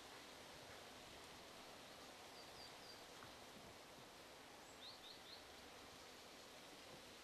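Near silence: faint outdoor ambience with a small bird chirping softly, two quick runs of three high chirps, about two and a half and five seconds in.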